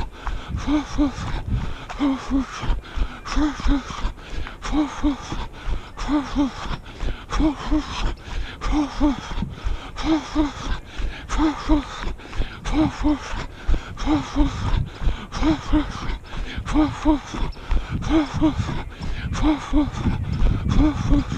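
A runner's heavy rhythmic breathing: a voiced two-puff exhale repeating about every 0.7 s. Under it, the steady thud of running footfalls on a gravel path.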